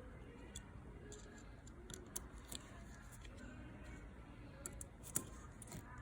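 Faint, scattered metallic clicks and ticks of a 3 mm hex key seating in and turning small M4 bolts as they are retightened.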